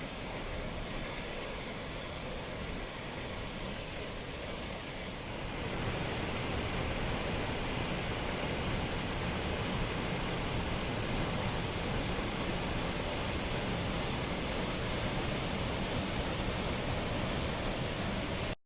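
Waterfall rushing as a steady, even noise. It grows louder and hissier about five seconds in, and cuts off abruptly at the very end.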